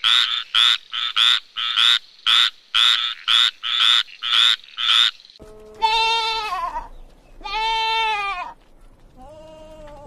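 A small green frog calling: a quick run of short croaks, nearly three a second, which stops about five seconds in. Then goats bleat: two long bleats that arch in pitch, and a fainter, shorter one near the end.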